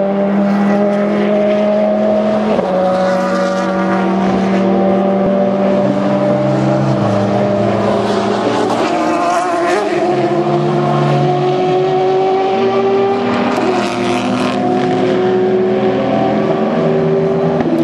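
Several endurance race cars, prototypes and GT cars, running together on the track, their engine notes held and gliding slowly up and down. A couple of louder rushes come through about halfway and again later on.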